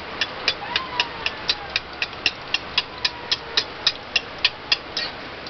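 Egg frying in oil in a wok, a steady sizzle, with a sharp regular ticking about four times a second throughout.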